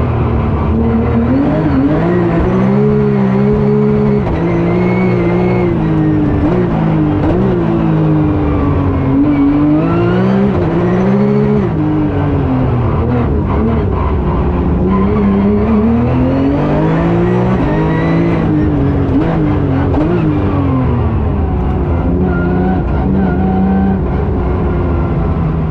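Porsche 997 R-GT's flat-six race engine heard from inside the cockpit, running hard and rising and falling in pitch again and again as the car accelerates, shifts gears and brakes between corners.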